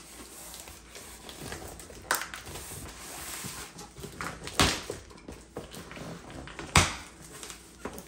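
Cardboard box flaps being pulled open and folded back by hand, with rustling and three short sharp cardboard knocks or scrapes: about two seconds in, midway, and near the end.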